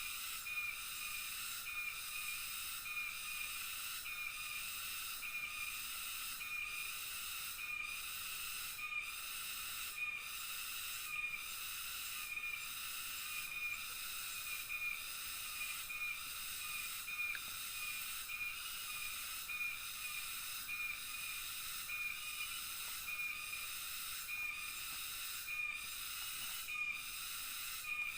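Rainforest night chorus of insects: a steady high-pitched hiss, with a short chirp repeating about once a second.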